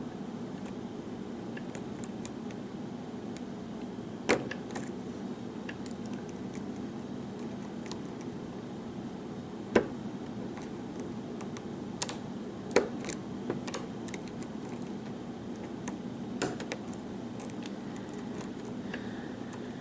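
Steel lock pick and tension wrench working the pins of a pin-tumbler lock that is held in a false set: scattered small metallic clicks and ticks, a few sharper ones, over a steady low hum.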